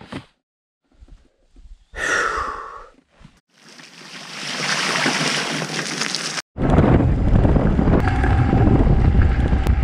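Cut-together stretches of riding a Zero FXE electric motorcycle: a brief breathy sigh, a few seconds of steady hiss, then about two-thirds of the way through a sudden switch to wind rumbling on the microphone with a faint steady whine from the motor.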